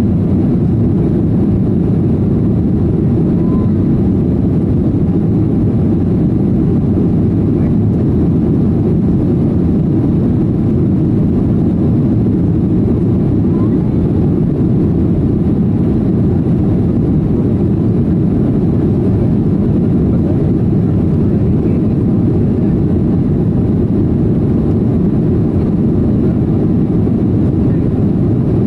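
Steady low rumble of a jet airliner's cabin during the climb after takeoff: engine and airflow noise heard from a window seat, even and unbroken.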